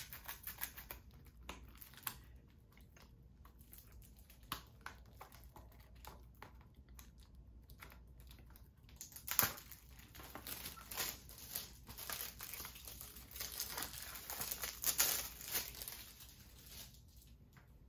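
Plastic shrink wrap on a Blu-ray case crinkling and tearing as it is handled and removed. There are scattered sharp crackles at first, then denser crinkling from about halfway through.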